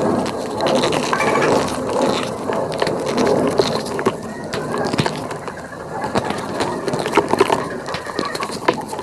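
Gym chalk mixed with cornstarch powder and pink holi powder being crushed, a dense, unbroken run of crunching and squeaking.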